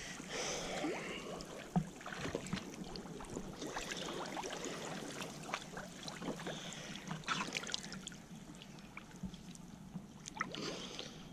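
Water lapping and trickling, with many small scattered clicks and light knocks.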